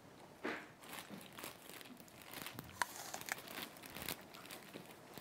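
Plastic food packaging being handled and crinkled at a kitchen counter, in faint irregular crackles and rustles.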